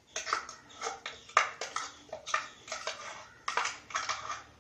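A metal spoon scraping and knocking inside a stainless-steel mixer-grinder jar as thick ground coconut paste is emptied out: a string of irregular scrapes and clicks, several a second.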